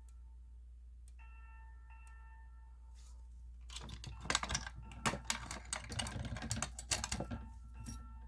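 A fire alarm's tone, several steady pitches at once, sounds in two short bursts and then stops. A few seconds later comes a longer, louder run of rapid clicking and rattling.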